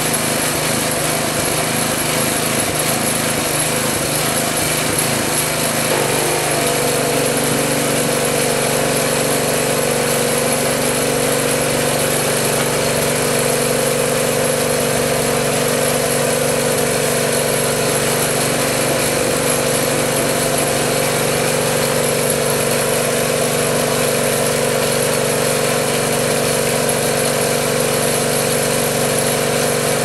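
A small engine running steadily. About six seconds in, its note settles into a steadier, even hum.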